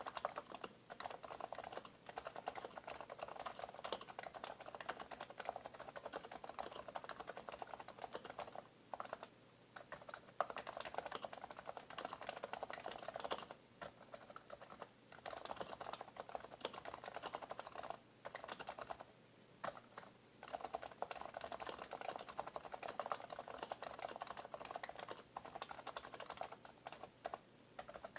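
Fast continuous typing on an HHKB Professional BT Type-S keyboard with silenced Topre switches: rapid, soft keystrokes, broken by a few brief pauses.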